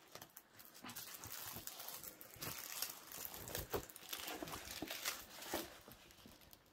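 Soft crinkling and rustling of a diamond painting canvas and its sticky plastic cover film being handled, a run of small irregular crackles.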